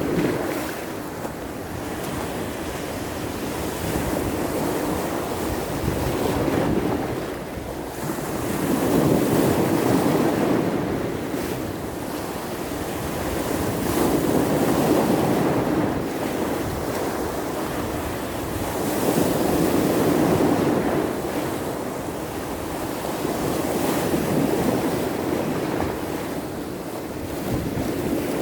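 Sea surf breaking on the shore in a small storm, the sound of the waves swelling and falling back about every five seconds, with wind blowing.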